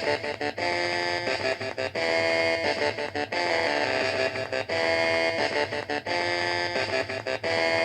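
Background music: an upbeat tune led by electric guitar, with a steady repeating rhythm.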